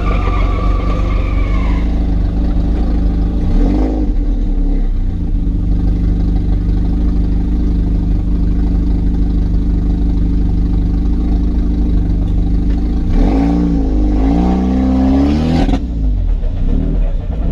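Turbocharged 1.8T inline-four engine of a Volkswagen Jetta Mk4, running steadily at low revs. A high whistle fades out in the first two seconds, and a few short revs rise and fall in pitch around four seconds in and again near the end.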